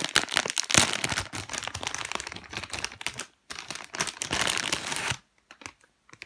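Plastic packaging crinkling and rustling as it is handled, in two stretches: a longer one of about three seconds, then a shorter one, ending with a few light ticks.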